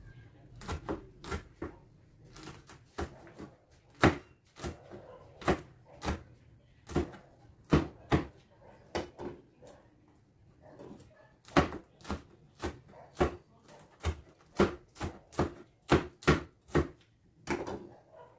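Small kitchen knife cutting green chili peppers, the blade knocking on the cutting board in irregular sharp taps, about one or two a second.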